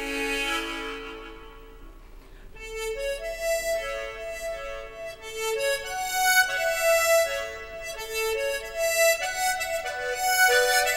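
Harmonica playing a slow melody. A held note fades away over the first two seconds, then after a short pause the tune resumes as a running phrase of notes.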